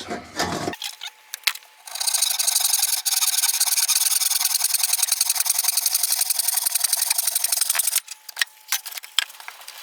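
Saw cutting through a length of 2x1 timber: a steady run of rapid strokes for about six seconds, starting about two seconds in and stopping abruptly, with a few knocks of the wood being handled before and after.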